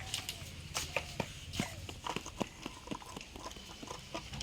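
Irregular light clicks and taps, a few a second, over a low steady hum.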